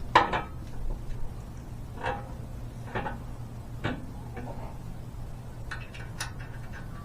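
Several short metallic knocks and clinks, roughly a second apart, as steering linkage parts and tools are handled and fitted, over a steady low hum.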